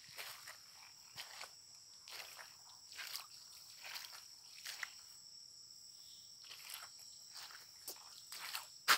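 Footsteps on a wet, muddy forest trail, a step about every half second to second, with a short pause a little past the middle. Underneath runs a steady high-pitched insect chorus.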